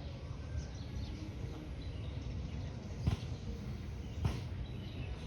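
Small birds chirping faintly over a steady low outdoor rumble, with two sharp knocks about three and four seconds in, the first the loudest sound.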